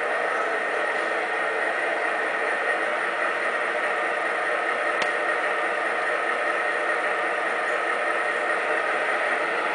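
MTH Premier SD90/43MAC model locomotive's sound system playing a GE AC6000 diesel idling. Its V16 prime mover gives a steady rumble through the model's small speaker, with little deep bass. A single click comes about five seconds in.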